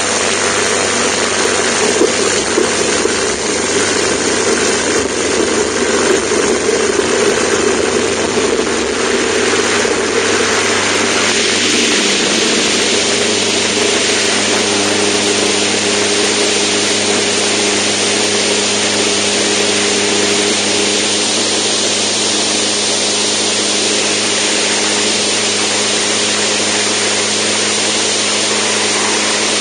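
Zenith STOL CH750 light aircraft's engine and propeller heard close up. It runs unevenly at first, then about twelve seconds in the sound brightens and settles into a steady full-power note as the plane takes off from the grass strip.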